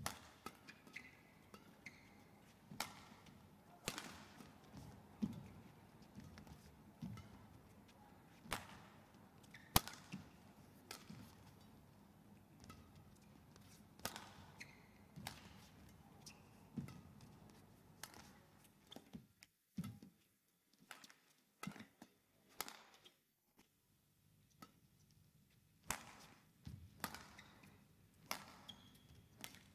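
Badminton rackets striking a shuttlecock back and forth in a rally: sharp, crisp hits about every second or so, with softer thuds in between. The hits stop about two-thirds of the way through, and after a short lull they resume near the end as the next rally starts.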